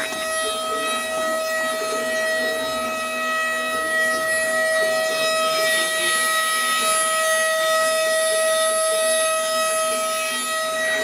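CNC router spindle running with a steady high-pitched whine as its bit carves into a wooden board, with a rough cutting noise underneath.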